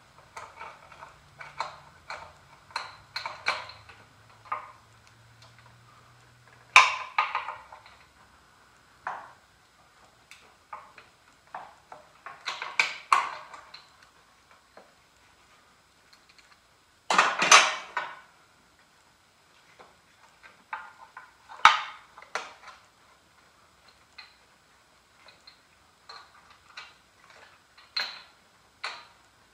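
Scattered metallic clinks, taps and clicks of a socket wrench knocking against a Vanguard mower engine as it is worked into a cramped space to reach a spark plug. Louder clatters come about 7 and 17 seconds in. A faint low hum in the first seconds stops abruptly at the first loud clatter.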